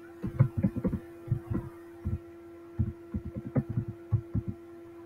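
Computer keyboard being typed on in quick, irregular runs of dull, low taps, about a dozen keystrokes, over a steady electrical hum.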